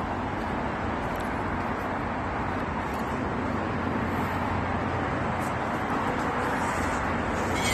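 Steady, even rushing background noise with no distinct events, at a constant level.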